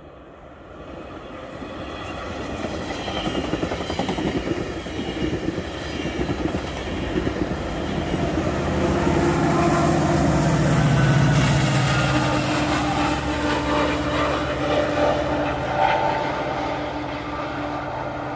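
A GO Transit bi-level passenger train passing at speed, about 120 km/h, pushed by an MP40PH-3C diesel-electric locomotive with a 16-cylinder EMD 710 engine. The wheel and rail noise builds as the coaches approach. The locomotive's engine is loudest about ten seconds in, as it goes by, and the sound eases a little as it moves away.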